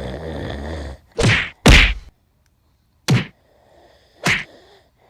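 A person's exaggerated, put-on snore, a low rasping drone that stops about a second in, followed by four short, loud, sharp bursts of sound, the second the loudest.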